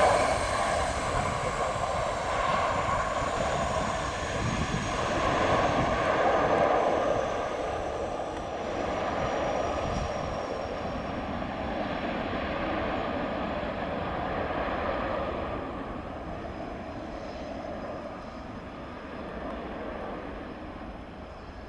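Jet engines at high power on the runway from an easyJet Airbus A319. The engines roar with a high whine that slowly falls in pitch and fades away over about fifteen seconds, leaving the quieter, steady engine noise of a business jet taxiing.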